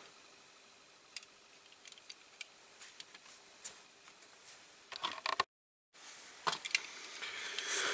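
Scattered light clicks and taps of a small diecast metal toy car and hand tools being handled on a workbench, with a quick cluster of clicks about five seconds in and a brief dead gap just after.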